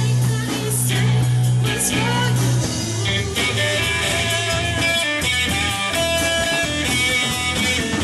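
Live rock band playing a slow blues-rock song, with guitar, bass and a singing voice.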